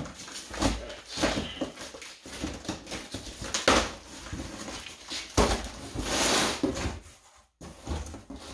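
A cardboard shipping box being handled and opened: irregular bursts of rustling and tearing packaging with a few knocks.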